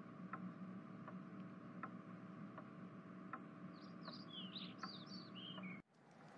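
Faint ambience effect: soft ticks about once every three quarters of a second over a low steady hum, with a quick run of bird chirps falling in pitch about four to five and a half seconds in. The sound cuts out briefly near the end.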